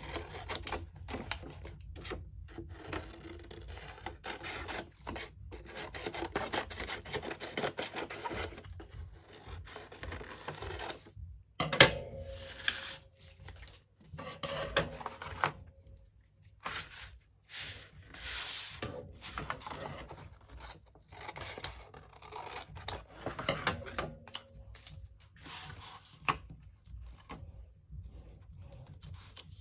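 Hands rubbing and handling paper and cardboard: runs of scratchy strokes with short pauses between them, and a single sharp tap about twelve seconds in.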